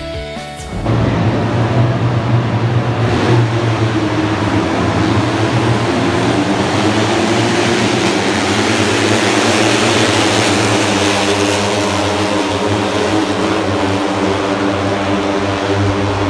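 Engines of a pack of 150 cc underbone racing motorcycles running on a circuit: a loud, continuous drone. A brief bit of music sits at the very start.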